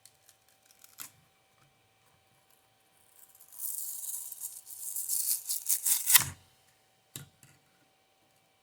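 3D-printed plastic puzzle pieces rattling and clattering together for about three seconds, ending in a thump, with a few single clicks before and after.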